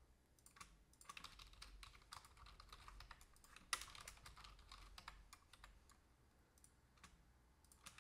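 Faint typing on a computer keyboard: quick runs of key clicks, with one louder keystroke nearly four seconds in and fewer clicks in the last few seconds.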